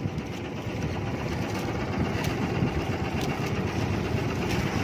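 Engine of a motorized bangka (outrigger fishing boat) running steadily.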